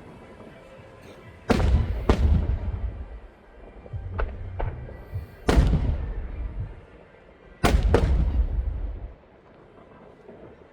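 Fireworks going off: a pair of loud bangs about a second and a half in, two smaller cracks around four seconds, another loud bang past five seconds and a final pair near eight seconds. The loud ones trail off in low rumbling echoes.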